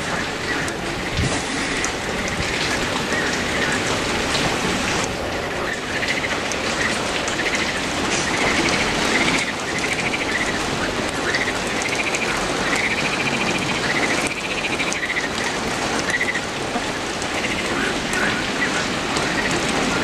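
Steady heavy rain falling on foliage and wet pavement, an even hiss of drops. A rising-and-falling chirp repeats several times over it in the middle.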